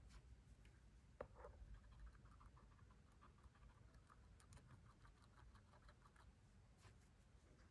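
Faint, quick soft taps and scratches of a paintbrush dabbing onto a small stretched canvas, with one slightly sharper click about a second in.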